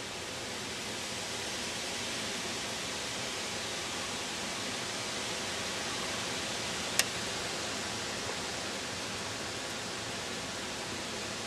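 Steady, even hiss of a snowstorm's wind, with one sharp click about seven seconds in.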